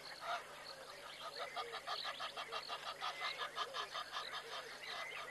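An animal giving a rapid series of harsh honking calls, about five a second, starting about a second in and running until near the end.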